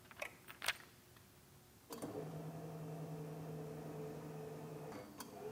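Portable sawmill's saw-head up/down motor raising the head along the mast: a few clicks from the control switches, then a steady hum that starts about two seconds in and stops about three seconds later.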